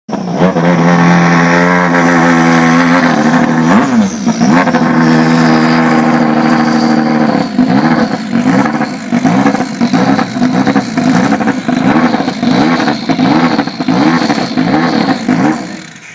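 Turbocharged Peugeot race car engine held at a steady high pitch, dipping briefly about four seconds in, then revved up and down over and over, about one and a half blips a second, with a thin high whine slowly falling in pitch above it.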